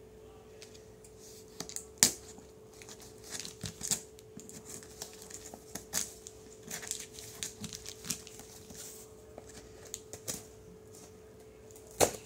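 A cardboard shipping box being opened with scissors: a run of small clicks, scrapes and rustles as the blades work at the packing tape and the box is handled, with a sharp knock about two seconds in and another near the end. A faint steady hum runs underneath.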